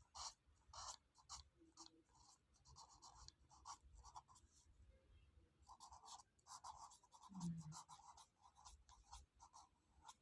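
Faint, quick scratching strokes in irregular runs, with a brief low squeak about three-quarters of the way through.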